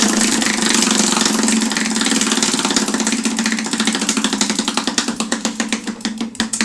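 Prize wheel ticking rapidly as it spins, the ticks gradually slowing and spacing out as it winds down toward a stop.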